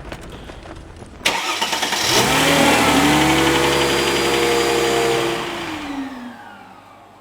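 A car engine starts up abruptly, rises in pitch and holds a steady high revving note for a few seconds, then winds down and fades away near the end.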